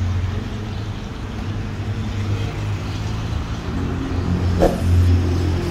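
Motorcycle engines idling, a steady low rumble, with a single sharp knock about four and a half seconds in.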